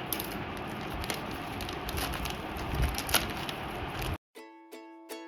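Plastic packaging crinkling and rustling with sharp clicks as a package is cut open, the loudest click about three seconds in. About four seconds in it cuts off abruptly and plucked ukulele music begins.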